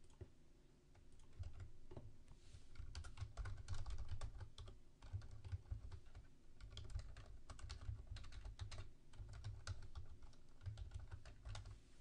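Faint typing on a computer keyboard: irregular runs of keystrokes, some closely spaced, with short pauses between them.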